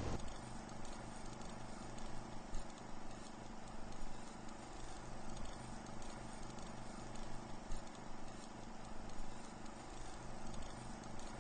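A faint, low, steady hum with soft, irregular ticks and crackles scattered through it.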